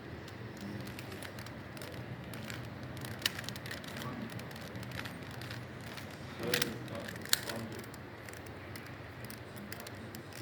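Plastic Rubik's Cube being turned by hand: scattered sharp clicks of its layers over a steady low room hum.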